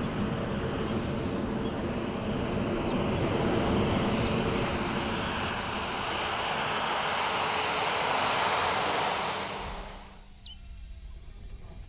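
Jet airliner engines running as the plane rolls along the runway after landing, a loud steady noise that dies away about ten seconds in.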